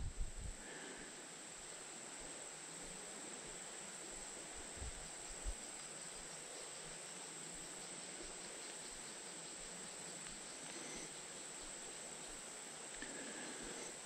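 Steady high-pitched drone of a summer insect chorus, with two soft low bumps about five seconds in.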